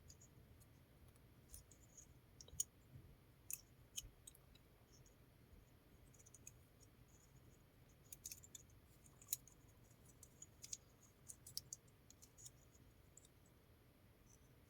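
Faint, irregular light clicks and scratches of twisted-pair Ethernet wires being laid by hand into the colour-coded slots of a plastic keystone jack, coming in two loose clusters.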